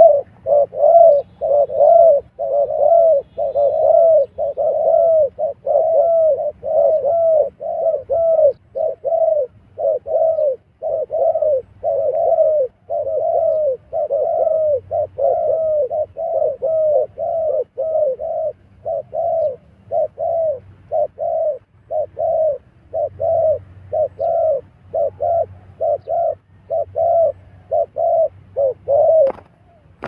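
Spotted doves cooing: a long, unbroken run of short arched coo notes, about two a second, with one sharp click just before the end.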